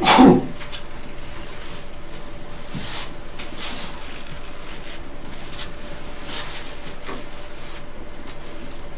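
Room tone of a lecture hall picked up by the speaker's microphone: a steady hiss with a faint steady hum and a few faint rustles or clicks. A man's word ends in the first half-second.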